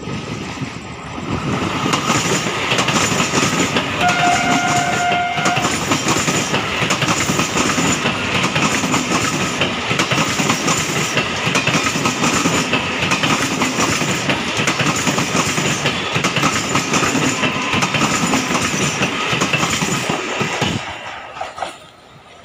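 Indian Railways EMU local train passing close by at speed, its wheels and coaches clattering on the rails. It sounds its horn once, a blast of under two seconds, about four seconds in, and the noise falls away sharply near the end as the last coach goes by.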